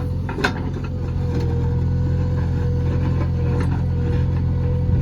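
JCB backhoe loader's diesel engine running steadily, with a steady whine above the engine note and a few light clicks.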